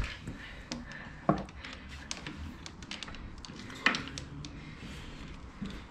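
Scattered light clicks and taps of hand tools working a small bolt on a quad bike engine, with two louder knocks, about a second in and near four seconds.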